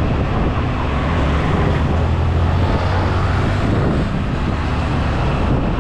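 Motorcycle riding along a road at a steady pace: a continuous low engine hum with road and wind noise.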